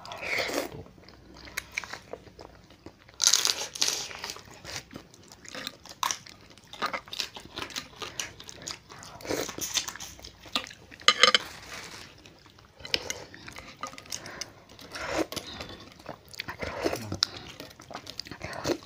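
Close-miked eating of spicy crab noodle soup: noodles slurped in several loud bursts, with chewing, biting and crunching of crab, and many small clicks.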